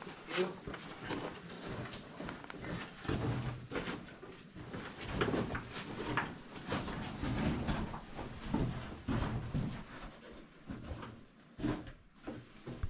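Footsteps crunching and scuffing over loose rock and rubble on a mine tunnel floor, a dense, irregular run of crunches and stone scrapes.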